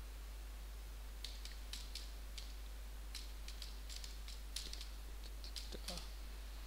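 Typing on a computer keyboard: about twenty key clicks at an uneven pace, starting about a second in, over a steady low hum.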